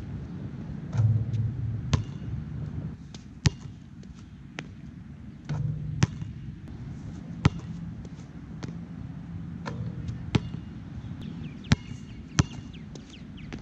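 A Nike Jordan Hyper Grip 4P basketball bouncing on a court: about eight sharp, separate impacts, irregularly spaced, over a steady low background rumble.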